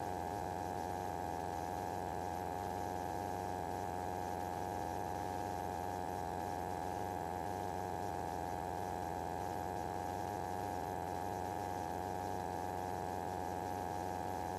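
Steady cockpit drone of a Van's RV light aircraft in cruise, heard through the headset intercom feed: an even hum with a few fixed tones that does not change.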